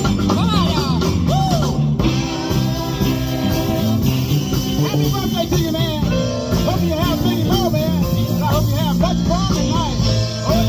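Live band playing with a full sound: bass, drums and guitar under a lead melody that slides up and down in pitch.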